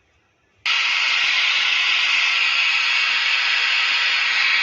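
Loud, steady hiss from a loudspeaker on the amplifier's repaired channel, cutting in suddenly about a second in. The hiss shows that the channel, dead until its 4440 amplifier IC was replaced, now puts out sound.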